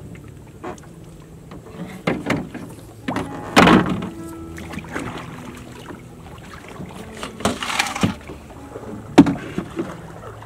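Water splashing as hands work in it over the side of a small wooden boat, with scattered knocks against the hull and a sharp knock near the end.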